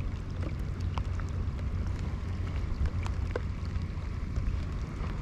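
Wind buffeting the microphone and water lapping against a kayak's hull, a steady low rumble with a few faint ticks.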